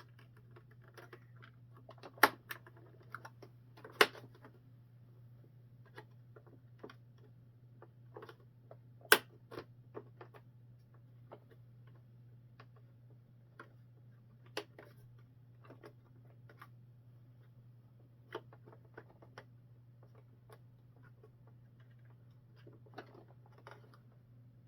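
Irregular clicks and taps of small plastic parts being handled and fitted onto a model tank, with a few sharper snaps, over a steady low hum.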